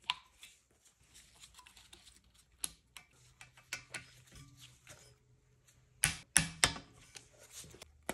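Small metal clicks and taps of hand tools and turbocharger parts being handled and fitted, with three louder sharp clicks close together about six seconds in.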